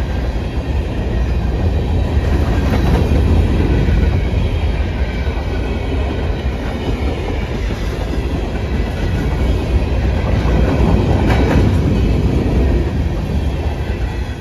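Freight train rolling past: a steady rumble of wheels on rail, with a few clacks over rail joints.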